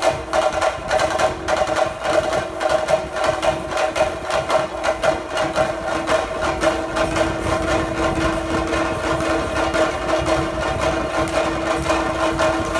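Theyyam ritual percussion: fast, dense chenda drumming with cymbal strokes, over a steady held tone.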